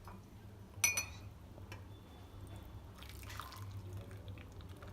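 Hot kadha, a herbal decoction, poured from a pan through a sieve into a cup, trickling and dripping, with one sharp clink about a second in.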